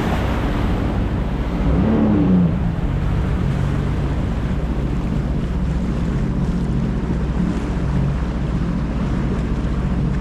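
Jet ski engine running steadily under way, with water rushing against the hull and wind buffeting the microphone. There is a short rise and fall in pitch about two seconds in.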